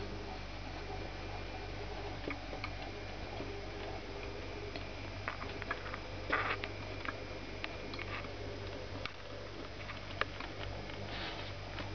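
Electric drip coffee maker brewing: small irregular ticks, pops and drips over a steady low hum, with a louder brief rustle about six seconds in.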